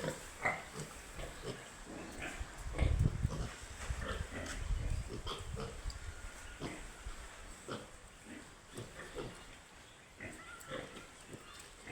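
Piglets grunting in a string of short, irregular grunts, with a low rumble about three to five seconds in.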